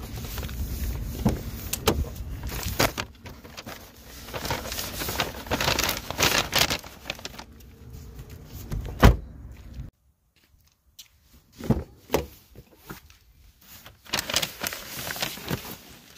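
Handling noises at a car: a rear door opened, a takeout order and an insulated delivery bag rustled and bumped on the back seat, and a car door shutting with a loud thump about nine seconds in. More clicks and bumps follow after a moment of near silence.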